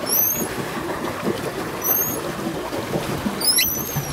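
Pedal boat under way: the paddle drive churns and rattles steadily in the water, and a short high squeak from the pedal mechanism comes about every two seconds.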